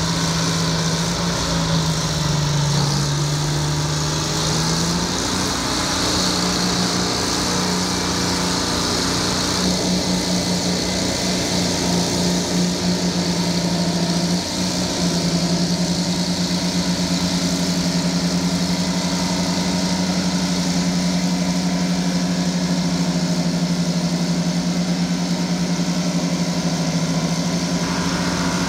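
Euclid TC-12 crawler dozer's twin Detroit Diesel 6-71 two-stroke engines running hard as the blade pushes a pile of soil. The engine note sags for a couple of seconds a few seconds in, then holds steady.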